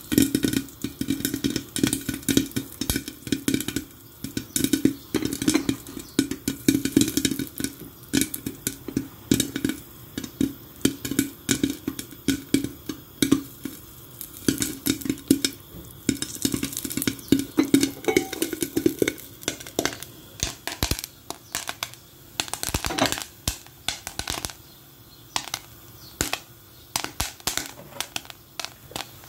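Popcorn kernels popping in hot oil inside a covered pot, a rapid irregular patter of sharp pops against the lid, thinning out somewhat in the last few seconds as the batch finishes popping.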